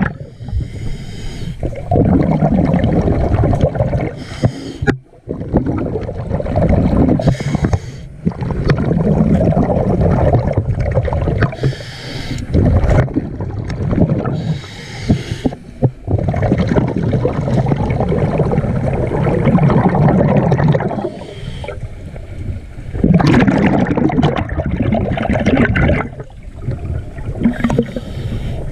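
Scuba diver breathing through a regulator underwater: a short hiss on each inhale, then a long rush of exhaled bubbles, repeating about every three to four seconds.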